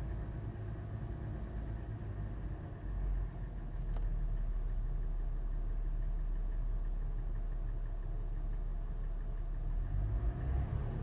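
Toyota FJ engine idling warm, with the slower, sharper metallic tapping or knocking that sets in later in the warm-up. The low engine drone grows heavier about three seconds in.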